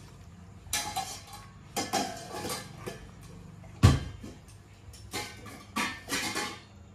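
Short clattering and scraping sounds around a cat eating boiled egg white beside steel food bowls on a hard floor, several times, with one loud sharp thud about four seconds in.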